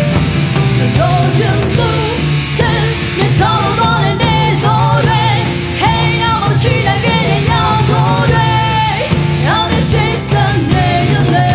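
A woman singing a song into a microphone, backed by a live band with drum kit, electric guitar and keyboards.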